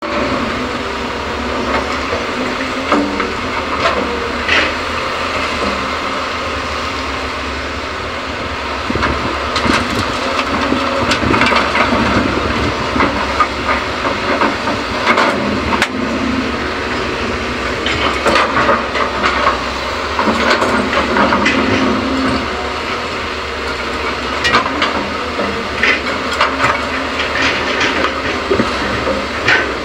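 Hyundai excavator working at the job, its engine running with a steady hiss, and scattered knocks and clatter of fill dirt being loaded into a dump truck.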